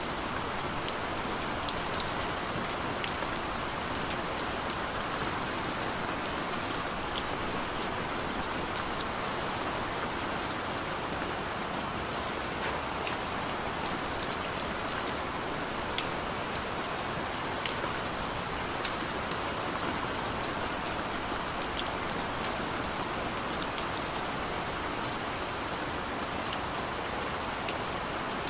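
Steady rain falling, an even hiss with scattered sharper drops pattering on a surface.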